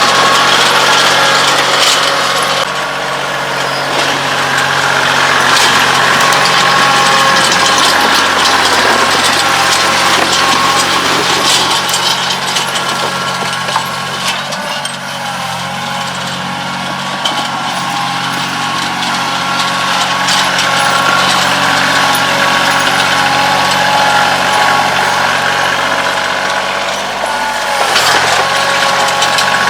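Kioti CK2610 compact tractor's three-cylinder diesel engine running steadily, its pitch shifting a few seconds in and again near the end, with the loudness falling off toward the middle and building back up.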